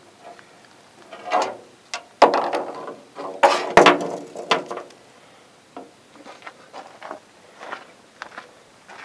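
Handling noise from baiting fishing gear: a run of sharp clicks, knocks and rattles, loudest in the first half, then softer scattered clicks.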